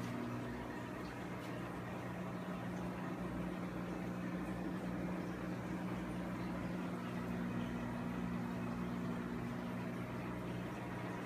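Steady hum of aquarium equipment, most likely the air pump, under the continuous fizzing hiss of bubble curtains rising through the tank water.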